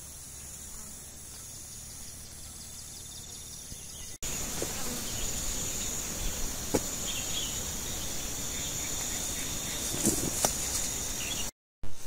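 Insects buzzing in a steady high-pitched drone, growing louder about four seconds in. Scattered crackles and snaps follow, like brush and footsteps of someone pushing through undergrowth, with a brief dropout near the end.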